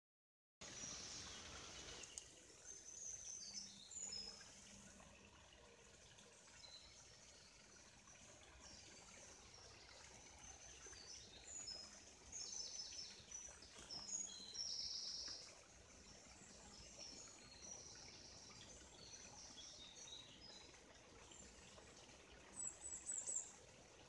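Songbirds singing in short high chirps and whistles, busiest in the middle, with a quick run of notes near the end, over the faint steady trickle of a stream.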